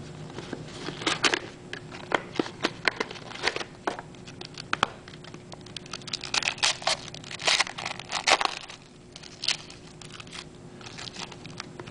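Trading-card pack wrappers crinkling and tearing as the cards are handled, a run of irregular sharp crackles and clicks.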